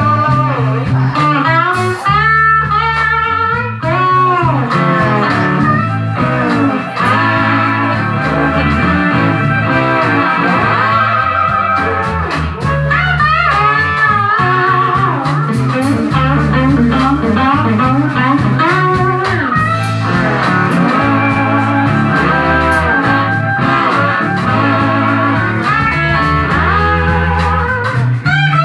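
Live blues band playing an instrumental stretch with no singing: electric guitar lead lines with bent notes over a steady bass line and drums.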